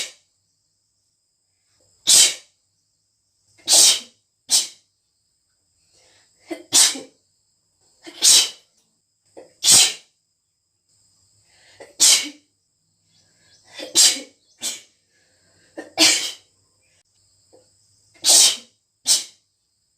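A girl sneezing over and over, about a dozen strong, wet sneezes every second or two, some coming in quick pairs, with short quieter intakes of breath before several of them.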